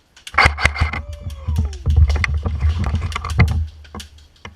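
Airsoft gunfire: a sudden flurry of sharp, irregular clicks and cracks of shots and BB impacts starting a fraction of a second in, over a low rumble that fades near the end.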